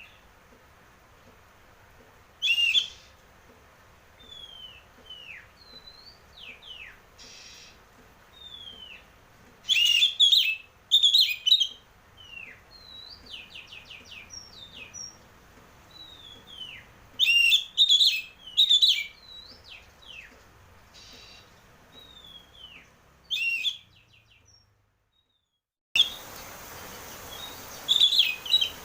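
Oriental magpie-robin (kacer) in full song: loud, harsh scratchy notes alternate with clear, falling whistles and a quick run of repeated notes. The song stops for about two seconds of near silence, then resumes over a steady hiss.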